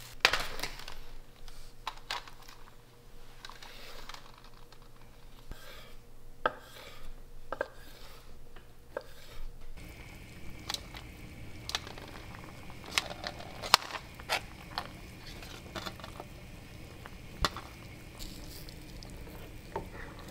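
Wooden spoon stirring soft tofu stew in a Korean earthenware pot (ttukbaegi), with scattered sharp knocks and clicks of the spoon against the pot. The loudest knocks come near the start and about two-thirds of the way through.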